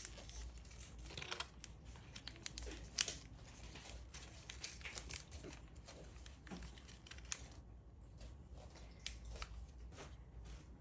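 Origami paper being folded and creased by hand: faint, irregular crinkling and crackling, with a sharper crackle about three seconds in.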